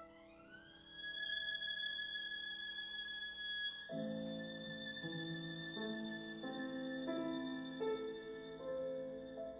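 Solo violin playing a slow, mournful melody: a note slides up into a long high held note that wavers in pitch, then about four seconds in it drops to lower, fuller notes, sometimes two at once, moving step by step.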